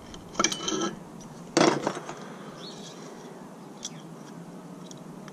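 Pliers and small metal hard-drive parts being handled: a short scrape about half a second in, a sharp metallic click a little after one and a half seconds, then quiet handling with a faint tick later.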